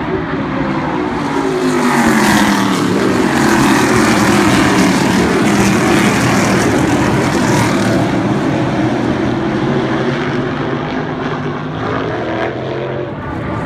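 A pack of NASCAR modified race cars with V8 engines running past at speed, many engine notes overlapping and sliding in pitch, loudest as the line of cars goes by a couple of seconds in, then easing off slightly.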